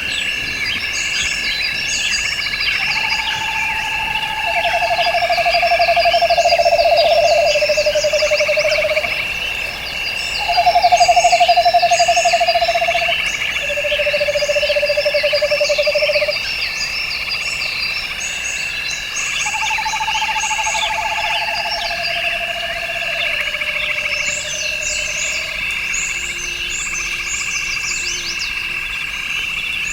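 Nature soundscape of steady insect chirping in two high drones, with quick bird-like chirps above it. A low trilled animal call sounds three times, each time in three held notes stepping down in pitch.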